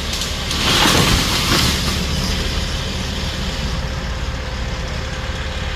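A motor vehicle's engine running steadily, with a louder hissing swell about a second in, like tyres or a passing vehicle.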